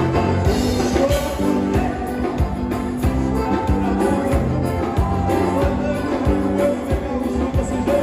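Gaúcho band music, an instrumental passage with a steady beat.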